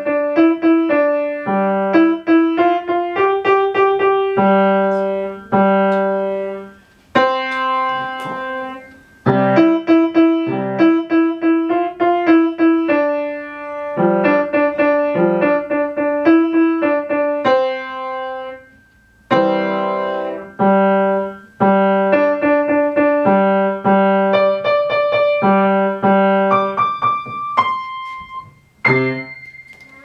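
Acoustic grand piano played by a child: a simple tune of single struck notes in short phrases, with brief pauses between them, ending on a few high treble notes near the end.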